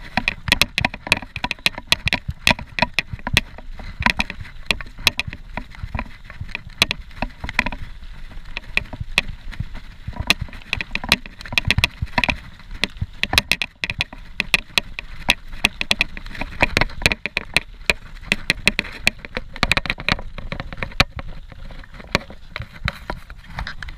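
Scott Genius 740 mountain bike rolling fast down a rough dirt and leaf-covered trail: a low rolling rumble from the tyres, with the bike and camera mount rattling and clattering irregularly over every bump.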